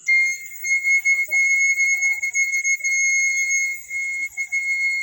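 Pan flute's highest pipe blown, holding one high, clear whistling note. It dips briefly a few times in the second half as the player re-blows it.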